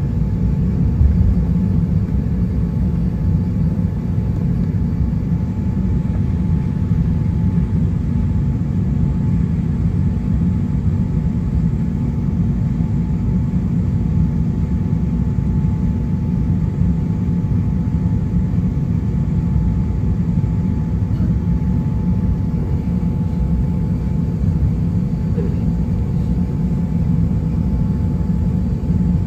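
Steady low rumble of an Airbus A350-900 taxiing, heard inside the cabin, with its Rolls-Royce Trent XWB engines running and a faint steady whine above the rumble.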